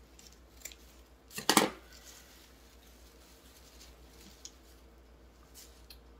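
Scissors snipping through the wrapping around a small potted orchid: a few scattered clicks, with the loudest cluster of snips about a second and a half in, then a few faint clicks near the end.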